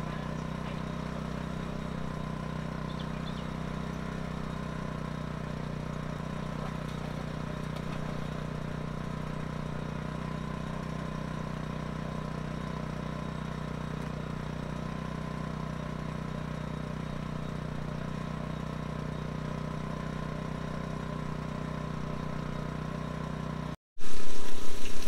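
An engine running steadily at a constant speed, an even hum with no change in pitch. It cuts off abruptly near the end, giving way to a much louder rushing sound.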